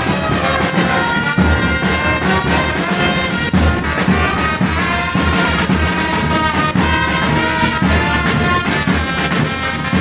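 Background music with a steady beat and held melodic notes.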